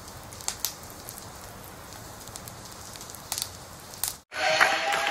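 A steady hiss with a few scattered crackles and clicks over the intro card, a crackling sound effect. Near the end it cuts off suddenly and gives way to a gym crowd clapping.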